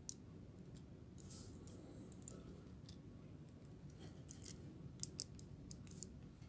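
Hard plastic parts of a Transformers Masterpiece Sunstreaker figure clicking as its joints and panels are moved and snapped into place by hand, scattered single clicks with two sharper ones about five seconds in, and brief scraping of plastic between them.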